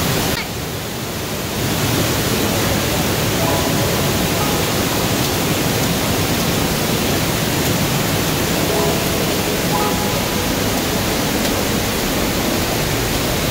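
Waterfall rushing steadily, an even wash of falling water, with a brief dip in level just after the start.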